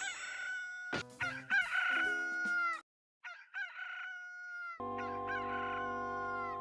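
Rooster crowing, the Sound Ideas 'Bird, Rooster - Morning Call' stock effect, heard several times in a row, each crow a held high note that falls away at the end. There is a short gap of silence partway through, and held musical notes come in under the last crow.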